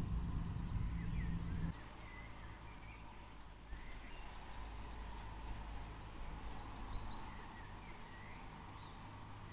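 Songbirds chirping and trilling in short phrases over a faint low background. A loud low rumble at the start cuts off abruptly about a second and a half in.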